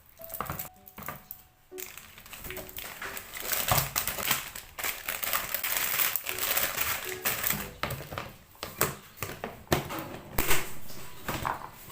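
Crinkling and rustling of packaging being handled, with scattered clicks and taps; the crinkling is densest in the middle. Soft background music plays underneath.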